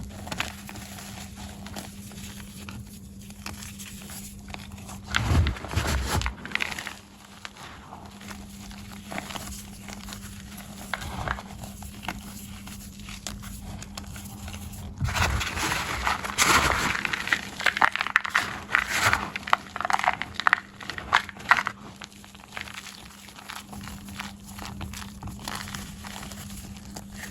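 Blocks of gym chalk being crushed, crunching and crumbling in irregular bursts. There is a short loud spell about five seconds in and a longer, denser one from about fifteen seconds in, over a faint steady hum.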